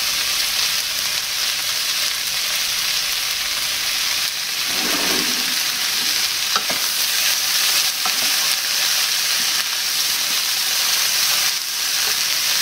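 Tofu, black bean, sweetcorn and courgette filling sizzling steadily in a non-stick frying pan while a wooden spoon stirs it, with a couple of light clicks of the spoon against the pan partway through.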